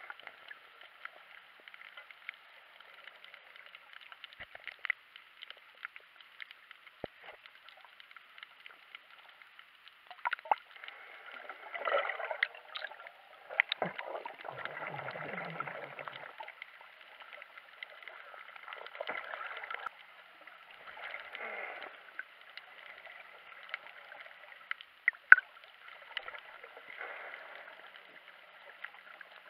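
Underwater sound from a submerged camera: a steady hiss with swells of bubbling and gurgling water through the middle, and scattered sharp clicks, the sharpest about 25 seconds in.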